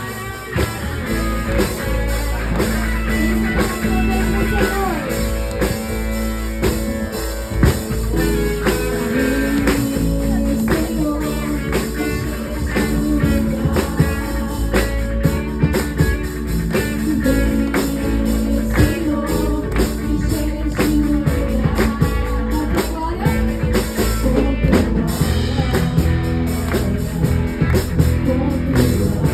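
Worship song played by a band, with guitar, drum kit and a singing voice.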